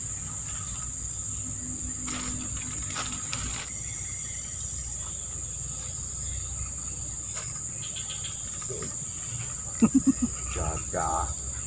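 Insects chirring in one steady, high-pitched band over faint low background noise. Near the end a man's voice briefly cuts in with a few short sounds.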